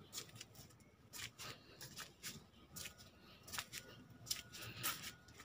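Faint, irregular clicks and rustles, a few a second, with a faint steady high tone coming in about halfway through.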